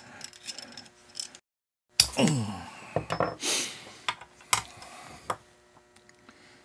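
Small metal parts of a Lewis Lead Remover and its aluminium cleaning rod being handled and set down on a wooden workbench: scattered light clicks and taps, a break in the sound about a second and a half in, then a louder knock and a few more sharp taps.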